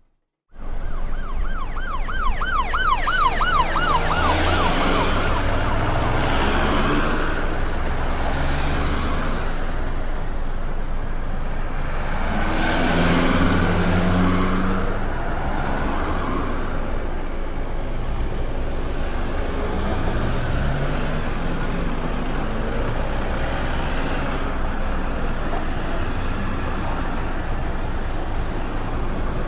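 Busy street traffic with engines of passing vehicles rising and falling. Near the start an emergency siren warbles fast, about four times a second, and fades away after a couple of seconds.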